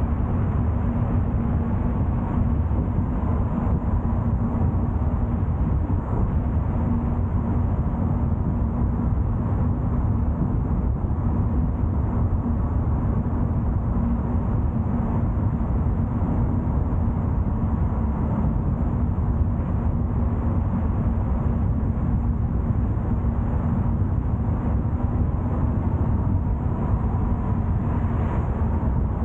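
Car driving at steady speed: constant road and tyre noise with a steady engine hum underneath.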